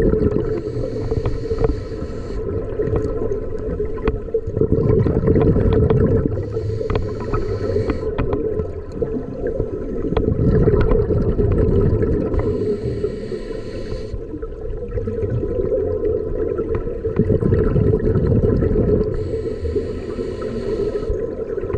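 Scuba diver breathing through a regulator underwater: the hiss of each inhale alternates with the bubbling rumble of each exhale, about four breaths roughly six seconds apart, over a steady low hum.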